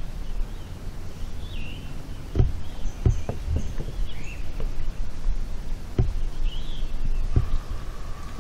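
Outdoor lakeside ambience: a steady low rumble of wind on the microphone, with birds chirping every couple of seconds. A few short knocks come through, and near the end a faint steady tone sits under it.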